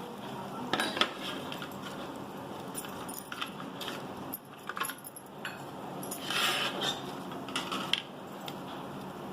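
Metal kitchen utensils clinking and scraping against a pan, a handful of separate sharp clinks over a steady hiss.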